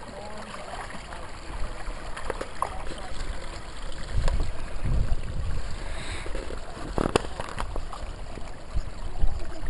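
People pushing on foot through dry marsh reeds and brush: scattered sharp snaps and crackles of twigs and stems, with low rumbles on the microphone, strongest about halfway through.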